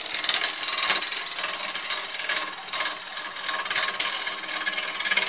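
Woodturning gouge cutting into a walnut blank spinning on a wood lathe at about 1,100 RPM: a loud, harsh scraping, pulsing rapidly as the tool roughs the blank down toward round.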